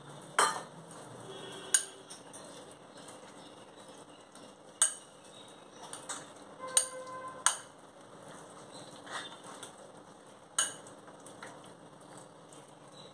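A metal spoon stirring a potato-and-chickpea chaat in a glass bowl: soft scraping broken by several sharp clinks against the glass, one of them ringing briefly.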